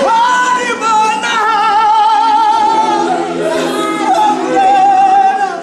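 Unaccompanied gospel choir singing in harmony, with one lead voice holding long, wavering high notes above the choir.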